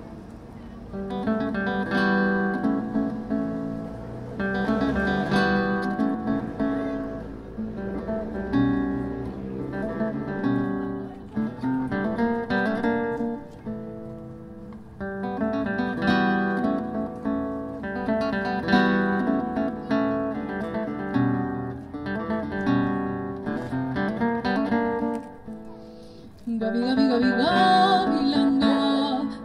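Acoustic guitar played solo: plucked and strummed chords in phrases that swell and fade every couple of seconds, growing louder near the end.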